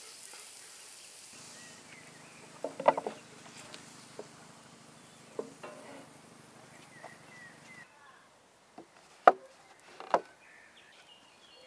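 A few sharp knocks: a quick cluster about three seconds in, a single one near nine seconds (the loudest) and another about a second later. Under them runs a low steady hum that stops about eight seconds in.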